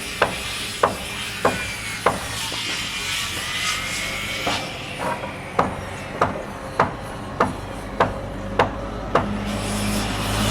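Hammer blows struck at a steady pace, about one every 0.6 seconds, over construction-site background noise. The blows pause for about two seconds near the start, while a higher whine dips and rises.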